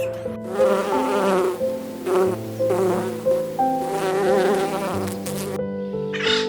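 Insect buzzing, a fly or bee, wavering in pitch over background music, stopping abruptly near the end.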